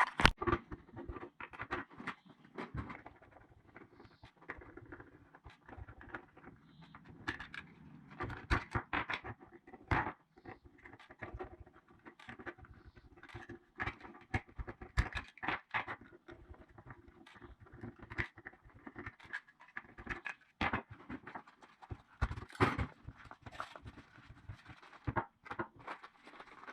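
Irregular clicks, taps and scrapes of small plastic parts being handled as a solar garden light is taken apart and its rechargeable AA battery swapped.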